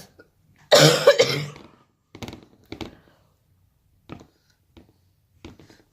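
A loud cough-like vocal burst about a second in, then several brief, faint scrapes as sticky cornflour-and-conditioner dough is scraped off a child's hands.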